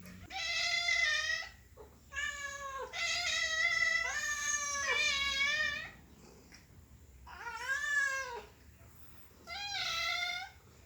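Domestic cat meowing over and over: about six drawn-out meows with short gaps between them, several run close together around the middle.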